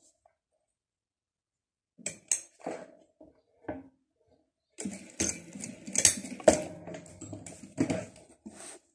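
Industrial lockstitch sewing machine stitching in short, irregular bursts with metallic clattering, finishing off a seam. A few sharp clicks come about two seconds in, before the main clatter starts near the middle.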